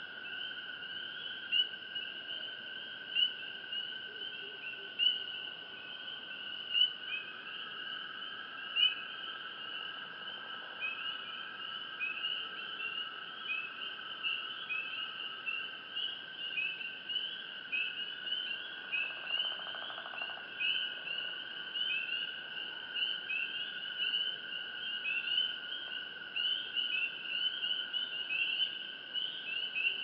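Night chorus of crickets and other insects: a steady high trill under many short, rapidly repeated chirps. A louder chirp stands out about every two seconds over the first nine seconds, and the chirping grows denser later on.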